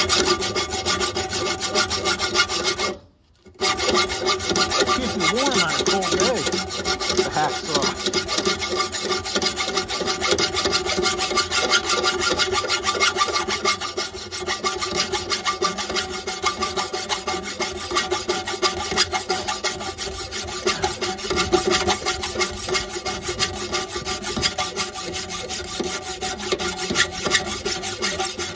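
Hacksaw sawing through a rusted steel muffler-clamp bolt, a steady back-and-forth rasp of the blade in metal, with a brief break about three seconds in.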